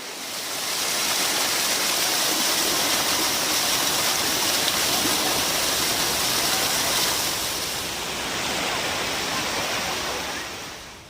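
Monsoon-swollen waterfall: a loud, steady rush of falling water that swells about half a second in and fades near the end.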